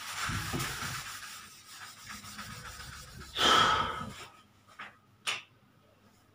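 Dry-erase board being wiped with an eraser: a rubbing hiss over the first couple of seconds, then a louder, fuller burst of noise about three and a half seconds in and two light clicks about a second later.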